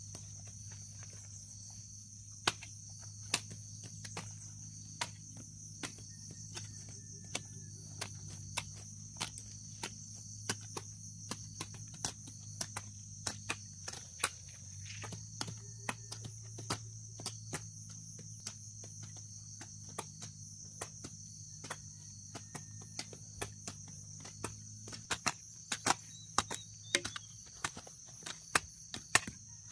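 Hand hoes chopping into grassy soil: irregular sharp strikes about once or twice a second, coming faster and louder near the end. A steady high insect drone runs underneath.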